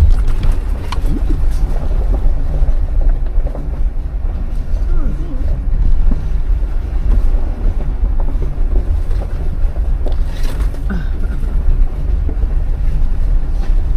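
Jeep driving slowly on a rough off-road trail: a steady, loud low rumble of the engine and drivetrain with wind buffeting the microphone and scattered light knocks.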